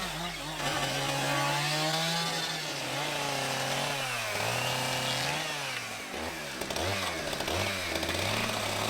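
A small engine running, its pitch holding, then dipping and rising again several times.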